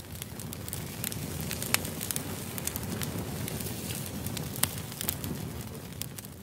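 Wood fire crackling, with irregular sharp pops over a steady hiss of burning.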